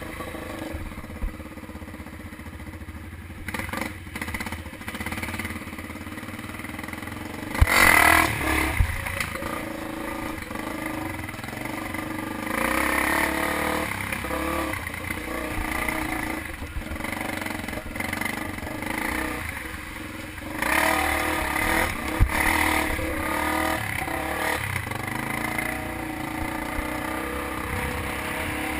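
Off-road motorcycle engine running and being revved while riding, with louder throttle surges about eight, thirteen and twenty-one seconds in, along with some clattering.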